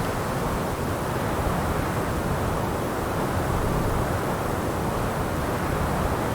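Desert ambience of steady, low wind rushing, an even noise without distinct events.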